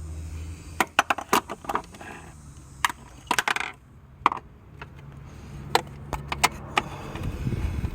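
Ratchet and socket clicking and clinking in short, irregular clusters as a nut is worked off on the alternator.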